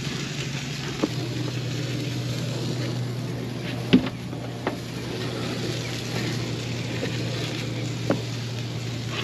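Boat engine idling steadily as a low, even hum, with a few sharp clicks and knocks: about a second in, twice around four seconds, and near the end.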